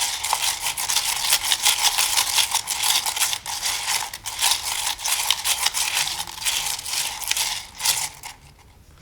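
Seashells and pebbles coated in resin being stirred and shaken together, a dense rattling clatter of small clicks that stops about a second before the end.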